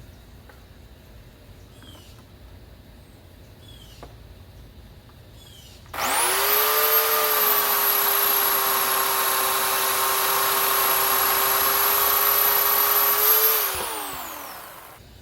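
Bauer 16-inch corded electric chainsaw starting abruptly about six seconds in and running at a steady high whine for about seven seconds, then winding down to a stop near the end.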